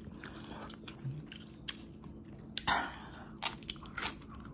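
Close-up mouth sounds of a person eating spicy instant noodles: chewing with wet clicks, a brief hiss a little past halfway, and crisp bites near the end as a piece of pickled yellow radish goes in.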